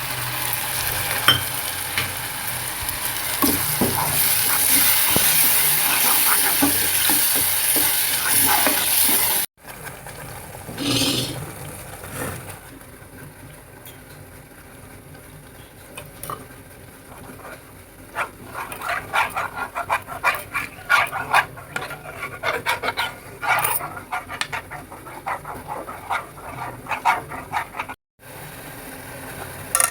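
Food sizzling in a hot pan, a steady hiss that stops abruptly about nine seconds in. After that comes quieter stirring in the pan, ending with a run of quick clicks and scrapes of a spoon against the pan in the last ten seconds.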